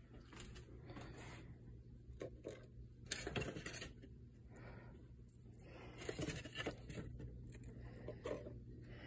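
Faint handling noises: scattered scrapes and clicks, a cluster about three seconds in and more near six and eight seconds in, over a low steady hum.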